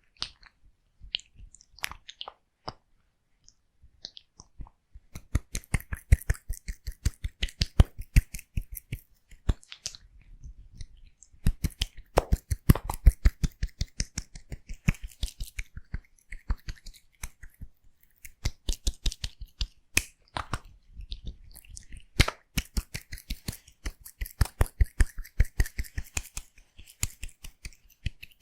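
Scissors cutting hair close to the microphone: a few scattered snips at first, then rapid runs of crisp snips with short pauses between them.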